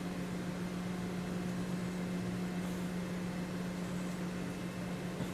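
Steady low hum, a constant low tone over an even background hiss.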